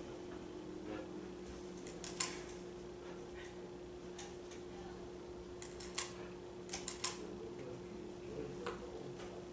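A few sharp, light clicks and ticks, with a quick cluster of three about seven seconds in, over a steady low electrical hum in the room.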